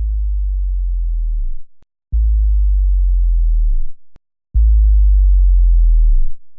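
Three deep synthesized bass tones, each held steady for about a second and a half, starting with a click and cutting off sharply into silence; the last one is the loudest.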